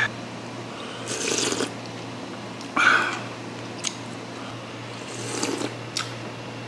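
A man slurping hot soup off a wooden spoon and chewing, in three short noisy bursts, with two light clicks of the spoon against the earthenware bowl, over a steady low hum.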